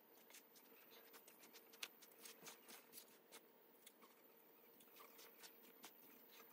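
Faint, scattered soft clicks and crackles of hands mixing and kneading wheat flour and water into dough in a steel bowl, over a faint steady hum.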